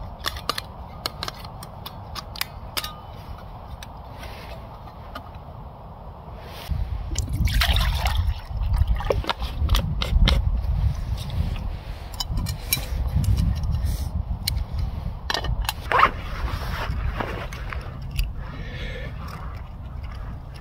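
Wind rumbling on the microphone in gusts, louder after a few seconds, with light clicks and knocks of camping gear being handled.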